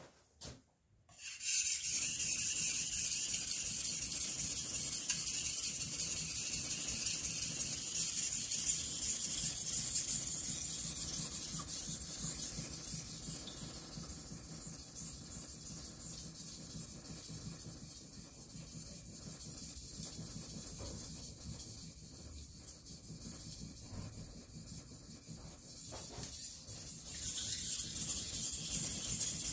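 Steel kitchen knife blade being sharpened by hand on a whetstone: steady scraping strokes that start about a second and a half in, ease off in the middle and grow louder again near the end.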